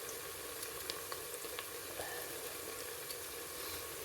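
Onions frying in hot oil in a cooking pot as they brown: a steady sizzle with scattered small crackles.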